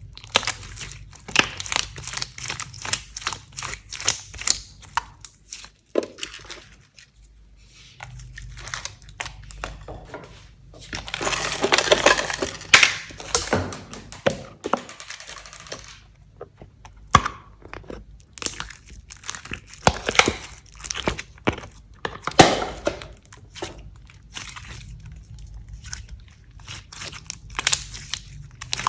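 Slime being squeezed and stretched by hand: a run of sharp crackling pops and sticky snaps, thickening into a dense, louder crackle a little under halfway through.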